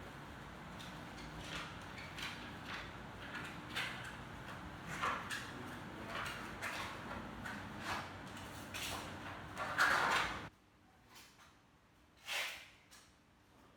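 A series of short scrapes and rustles from objects being handled, over a steady background hum. The loudest scrape comes about ten seconds in, and the hum cuts off abruptly just after it.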